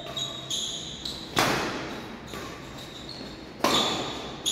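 Two sharp badminton racket strikes on a shuttlecock, a little over two seconds apart, echoing in a large hall, with short squeaks of shoes on the court mat between them.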